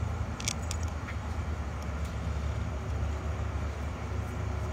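A steady low rumble, with a few light clicks about half a second to a second in as a new bolt is handled and fitted into the pump.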